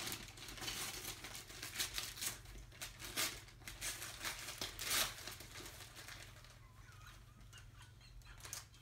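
Gift wrapping paper being torn and crinkled by hand as a present is unwrapped, in quick rustling spurts that thin out after about five seconds.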